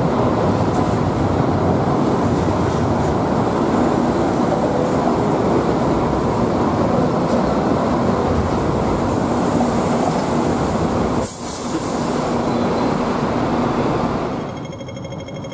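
MTR Light Rail car rolling close past on its track, a steady rumble of wheels on rails with a low hum. It drops away sharply near the end as the car clears.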